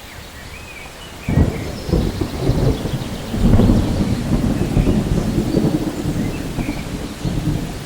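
Rain falling steadily, with a deep thunder rumble that breaks in suddenly about a second in and keeps rolling and swelling.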